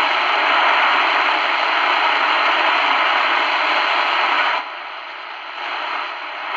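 Loud shortwave static hissing from the speaker of a Tecsun PL-450 portable radio tuned to 3330 kHz, where the Canadian time signal is at best barely audible under the noise. The hiss drops in level about four and a half seconds in.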